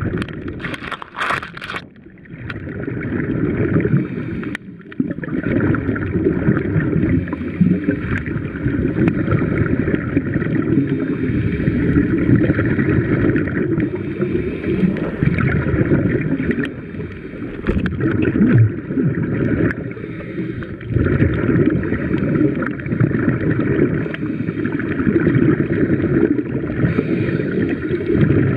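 Muffled underwater noise picked up by a camera held under water: a steady wash of water sound, with a few sharp clicks in the first couple of seconds.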